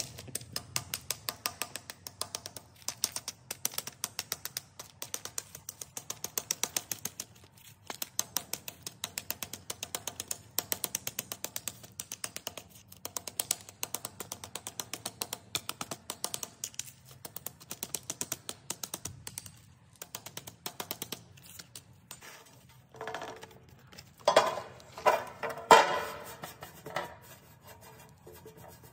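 Small claw hammer tapping quickly and repeatedly on dark pellets laid on cardboard over a concrete floor, crushing them to powder, several taps a second. Near the end the tapping gives way to a few louder scrapes and knocks.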